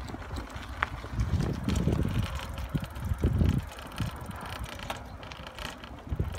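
Bicycle rolling with its rear freewheel ticking, and gusts of wind buffeting the microphone.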